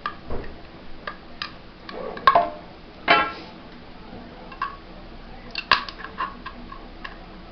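Plastic support material being snapped and pried off a 3D-printed part: scattered clicks and snaps with small pieces clattering, and one brief ringing clink about three seconds in.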